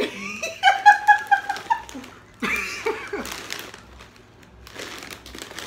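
Women laughing hard: a quick run of high-pitched "ha" sounds, then a second louder burst of laughter about two and a half seconds in.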